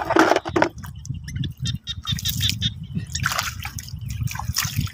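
Hands sloshing and splashing in shallow muddy water as eggs are dipped and rinsed, with irregular splashes, the strongest right at the start and others at about two, three and four and a half seconds.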